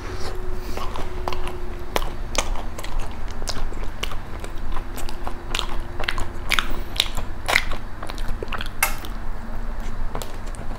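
A person chewing a macaron close to the microphone: wet mouth sounds with many sharp, crisp crackles of the shell. The crackles come thickest and loudest in the middle stretch.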